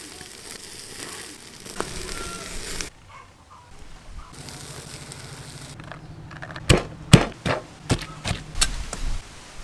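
Charcoal fire crackling and duck sizzling on a grill, then a pestle pounding in a mortar near the end with about eight sharp strikes, roughly three a second, as young tamarind sauce is pounded.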